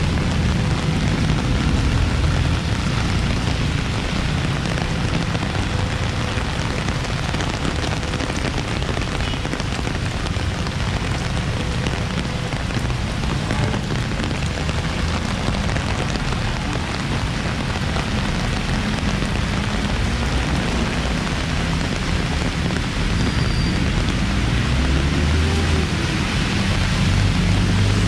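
Heavy rain falling steadily on the street, with the low rumble of traffic engines beneath it, growing louder near the end.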